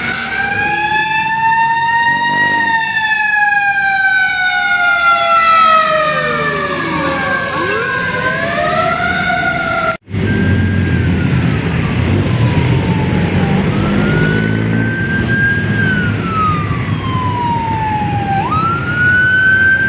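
Fire truck sirens wailing, several at once, their pitch gliding slowly down with further sirens sweeping across. After a sudden cut about halfway, a single siren wails slowly up and down over engine and road rumble.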